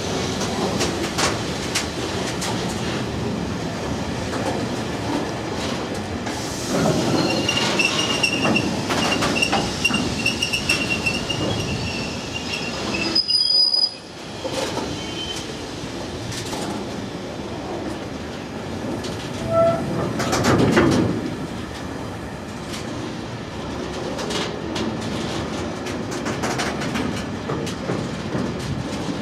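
A long train of MRA side-tipping ballast wagons rolling past. The wheels clatter over rail joints over a continuous rumble, and a high-pitched squeal rings from about seven seconds in for several seconds. The sound drops away sharply for a moment about halfway through, and there is a louder surge of clattering a few seconds later.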